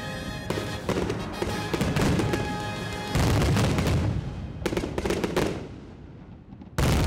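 Fireworks show: aerial shells bursting and crackling in a rapid run of bangs, with heavy booms about three seconds in, around five seconds and near the end.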